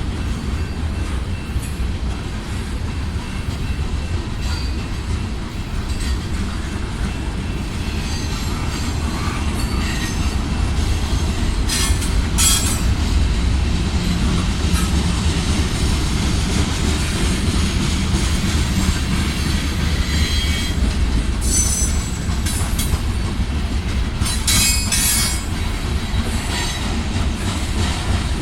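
Norfolk Southern manifest freight train rolling slowly by: a steady deep rumble of the cars' wheels on the rails, with several brief high-pitched wheel squeals, one near the middle and a few more near the end.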